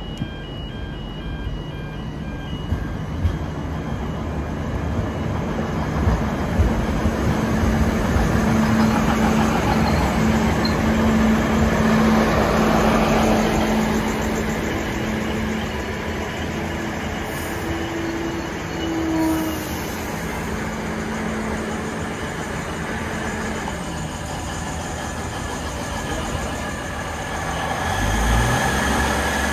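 Hunter railcar, a two-car diesel railcar set, running past at close range: a steady diesel engine drone with a few wheel knocks over the track joints, loudest about ten seconds in and easing as it slows alongside the platform. Level crossing warning bells stop about a second in.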